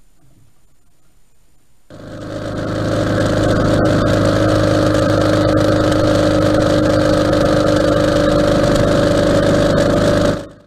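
Ural sidecar motorcycle's flat-twin engine running steadily at road speed, with wind and road noise. It comes in suddenly about two seconds in after quiet and cuts off abruptly just before the end.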